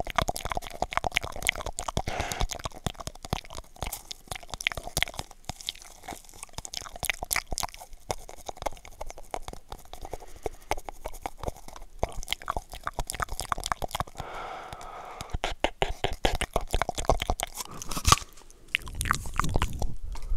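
Close-miked wet mouth sounds, a dense run of clicks, pops and lip smacks, made through a cardboard toilet paper roll held between the lips and the microphone. Near the end the tube comes away and a low rumble of breath hits the microphone.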